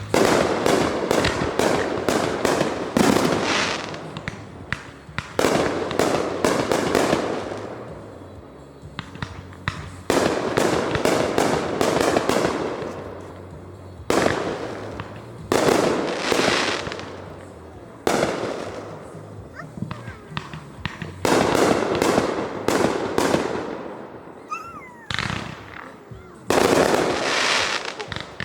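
Fireworks going off in quick succession: sharp bangs every few seconds, each fading out slowly, with rapid strings of crackles between them. A brief whistling glide comes about 25 seconds in.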